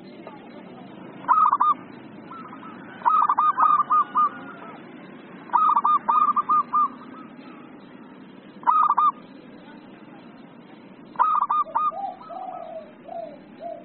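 Zebra dove (perkutut) singing its agitated 'emosi' song: five quick runs of rapid, staccato coo notes with pauses between them, then lower, softer coos near the end, over a steady low background noise.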